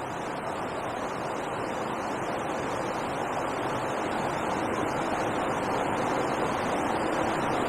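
Steady rush of water pouring over a river weir, growing slowly louder.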